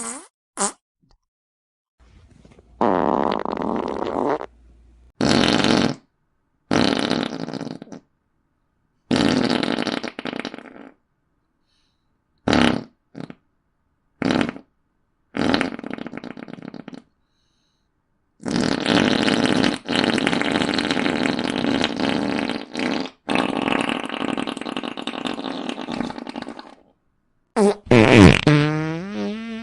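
Fart sound effects played one after another with silent gaps between them. A run of short and medium blasts is followed by one long drawn-out fart of about eight seconds, then a quick pitched one near the end whose tone wavers.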